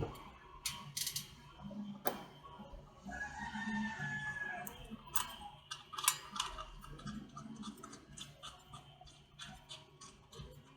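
Scattered metallic clicks and taps of a circular saw's outer washers and blade bolt being fitted back onto the blade shaft. A rooster crows in the background about three seconds in, for about two seconds.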